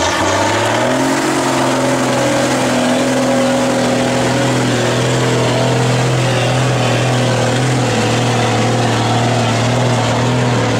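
Trial truck's engine running under load as the truck climbs a steep rocky slope. Its note rises in the first second, then holds steady.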